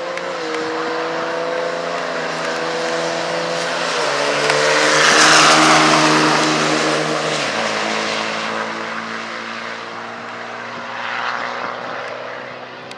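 Two diesel Dodge Ram pickup trucks accelerating hard down a drag strip side by side. The engine notes step down twice along the run, reach their loudest as the trucks pass about five seconds in, then fade as they pull away down the track.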